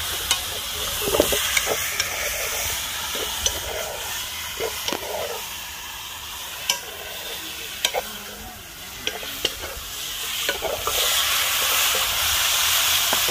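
Curry chicken back sizzling as it fries in hot oil in a metal pot, with a metal spoon scraping and clicking against the pot as it is stirred. The sizzle grows louder near the end.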